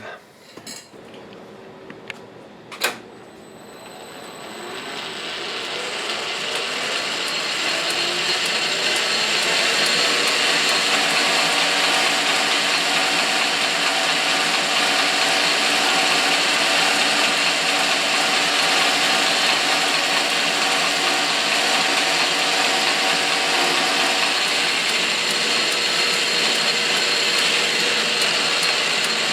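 Metal lathe starting up after a couple of clicks: its motor and spindle run up in pitch and loudness over several seconds, then run steadily.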